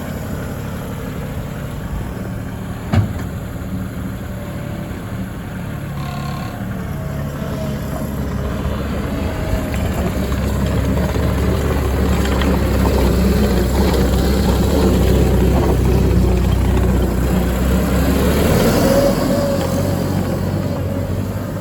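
Three-cylinder Perkins turbo diesel of a compact tracked skid steer running, growing louder with heavier low rumble through the middle as the machine is worked, then easing off near the end. A single sharp knock about three seconds in.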